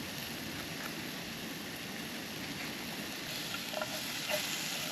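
Mushrooms and chopped jalapeños sautéing in a pan, a steady sizzle, with a few light clicks near the end.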